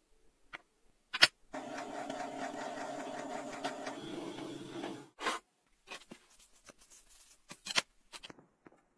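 A sharp knock, then a small motor runs steadily for about three and a half seconds, followed by a few more sharp knocks and clicks as the metal calendar parts are handled.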